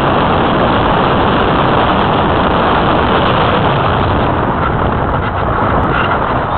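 Steady rush of airflow over a keychain camera's microphone mounted on the wing of an Easy Glider Pro model glider in flight. It turns gustier and buffeting over the last two seconds.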